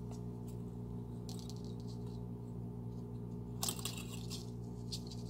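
Fine jewelry wire being pulled and wrapped by hand around a small crystal: short scratchy rustles and light metallic clicks, loudest about two-thirds of the way through, over a steady low hum.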